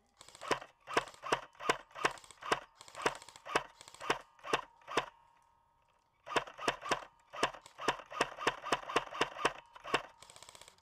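Airsoft rifle fired in a rapid string of single shots, each a sharp crack. About three shots a second for several seconds, a pause of about a second, then a faster string of about five or six shots a second.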